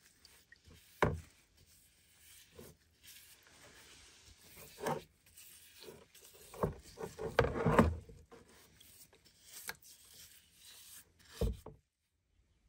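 Bristle brush scrubbing a rusty axe head in a shallow tray of liquid: irregular rubbing strokes with a few sharp knocks, busiest a little past halfway, cutting off near the end.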